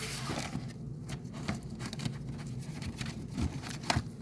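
Trading cards being handled and slid against each other, with scattered light clicks and short scrapes over a faint steady hum.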